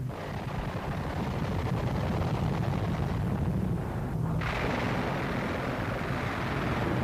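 Continuous low rumbling noise, growing brighter and hissier about four and a half seconds in.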